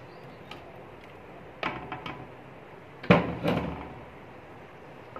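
Utensils clattering against an aluminium cooking pot as milk is stirred on the stove: two short bursts of knocks, about a second and a half apart, the second the louder.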